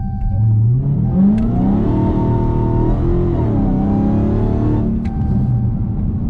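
Dodge Hellcat's supercharged V8 under hard throttle. The engine note climbs for about two seconds, dips briefly about three seconds in as if at a gear change, rises again, then falls back as the throttle is lifted.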